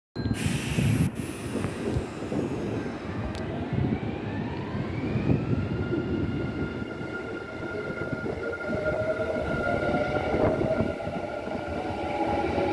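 Hanshin electric train in an EXPO 2025 wrap gathering speed past the platform. Its traction-motor whine rises in pitch over the first few seconds and then holds steady, over the rumble of the wheels on the rails. A brief high falling whistle and a few clicks come in the first seconds.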